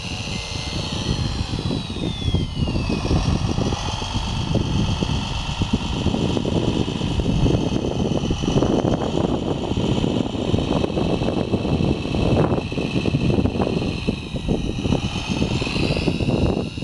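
Motors of a 1/14-scale RC Komatsu WA470-6 wheel loader whining as it drives and works its arm, the pitch falling and rising with the moves, over gusts of wind on the microphone.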